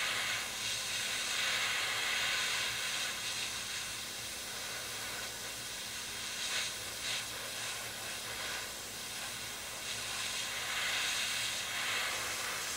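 Airbrush spraying Mr. Metal matte-aluminium metallic paint: a steady hiss of air and paint that swells and eases a little as the trigger is worked. It runs at an air pressure the painter thinks may be too low.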